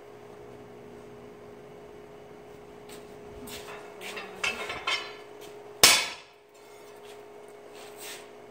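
A red-hot 1-inch square steel bar clanking on the anvil a few times, then a single sharp ringing hammer blow on it about six seconds in, over a steady low hum.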